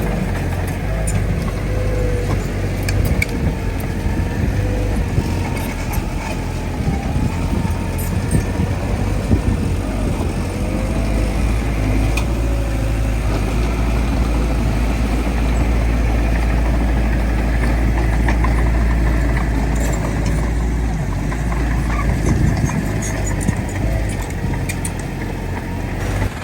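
Heavy diesel earthmoving machinery running continuously under load, with a wavering whine over the deep engine sound.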